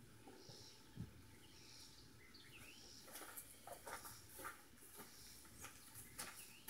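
Quiet outdoor background with a single bird chirp and a faint insect buzz that pulses about once a second; from about three seconds in, irregular footsteps on dirt and grass come closer.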